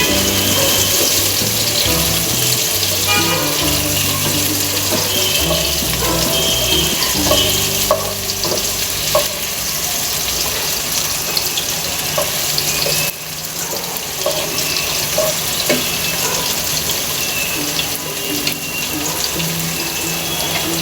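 Chopped onion and garlic frying in hot oil in a pan: a steady, dense sizzle that eases slightly about two-thirds of the way through. Background music plays underneath.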